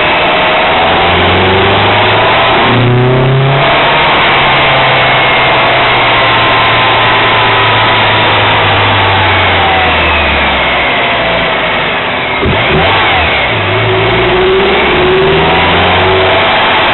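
Honda Euro R's four-cylinder engine running under way, its pitch rising and falling, with a break in the note about three seconds in and another about twelve seconds in, over steady road and wind noise.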